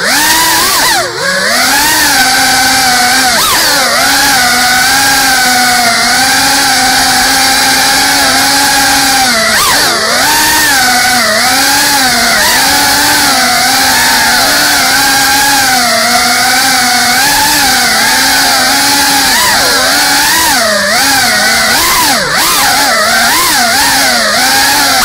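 GEPRC Cinelog 35 cinewhoop drone in fast flight: its brushless motors and ducted 3.5-inch propellers make a loud buzz that wavers up and down in pitch with the throttle. The buzz rises as the motors spool up at the start and dips sharply a couple of times on throttle chops.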